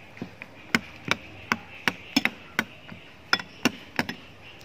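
Metal ladle knocking against a ceramic bowl as it stirs the soup: about ten sharp, irregularly spaced knocks.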